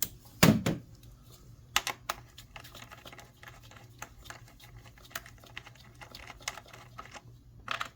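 Light plastic clicks and taps from an ignition coil and its wiring connector being unclipped and worked out of the engine by hand. A louder knock comes about half a second in.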